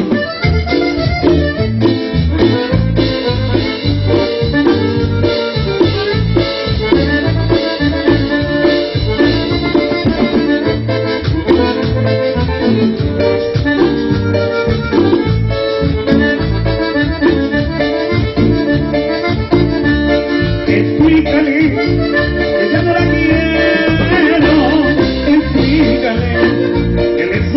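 Latin dance band playing an instrumental passage between sung verses, with a steady beat.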